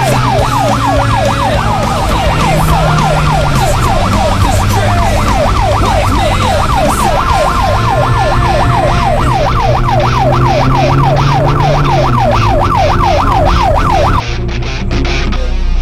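Siren-like yelping wail sweeping rapidly up and down, about three to four times a second, over a low droning tone that slowly rises and falls; the wail cuts off abruptly near the end.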